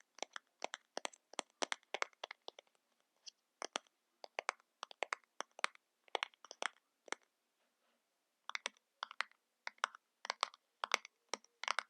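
Crisp, irregular clicks and crackles from makeup packaging being handled and tapped, coming in quick clusters with a pause of about a second partway through.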